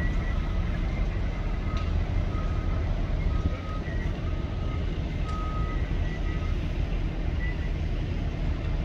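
Heavy machinery engine running steadily, with a reversing alarm beeping about once a second that stops after about six and a half seconds.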